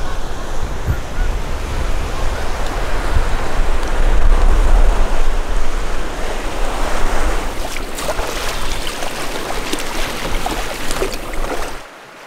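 Wind buffeting the microphone with a steady low rumble, under which a large flock of geese calls overhead, the honks coming through more clearly in the second half. It all cuts off suddenly near the end.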